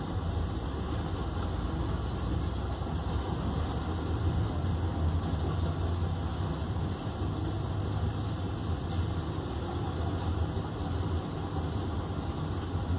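Heavy diesel tipper trucks running and moving slowly across a gravel yard, a steady low engine rumble throughout.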